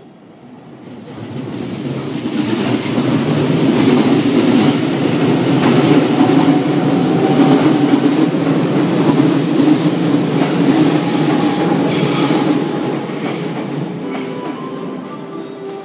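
JR Kyushu 813 series electric train, two coupled sets, running past along the platform. Its wheels and running gear build up as it approaches, stay loud for several seconds while the cars go by close, then fade away near the end.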